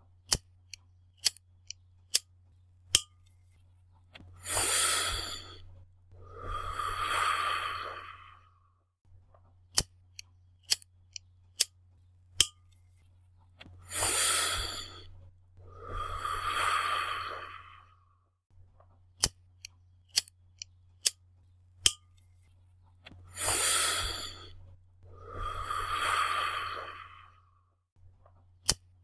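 A lighter clicked several times in quick succession, then two long breathy rushes of someone smoking, a drag followed by a longer exhale; the click-drag-exhale cycle comes three times. A faint low hum runs underneath.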